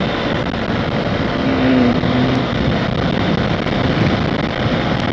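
Motorcycle running at highway speed, about 85 to 90 km/h, with a steady rush of engine and wind noise over a helmet-mounted microphone.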